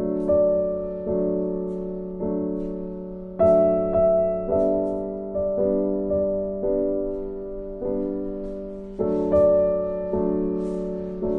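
Background piano music: slow, gentle chords struck about once a second, each one left to ring and die away.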